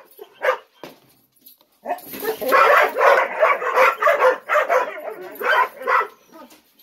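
Several ten-month-old Gollie puppies barking and yipping while waiting to be fed. A couple of single barks come first, then from about two seconds in a fast, overlapping run of barks and yips, which thins out near the end.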